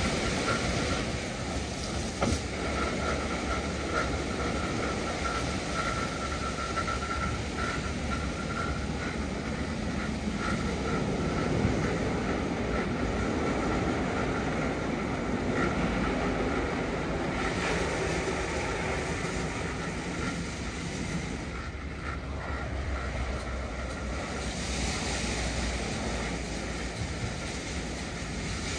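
2005 Istobal M12+ rollover car wash running its rotating CarLite brushes over a car, working the polish in, a steady swishing and whirring with a faint machine whine at first. About three quarters of the way through, the sound changes as the fresh-water second wash begins.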